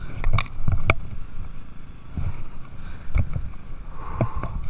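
Irregular knocks and bumps of a person climbing over a small sailboat's stern and rail, with a few sharper clanks, over a steady low rumble.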